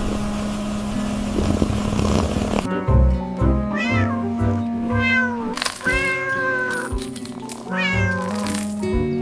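A steady rushing noise over music stops abruptly about a third of the way in. Then a cat meows four times over background music; the third meow is the longest.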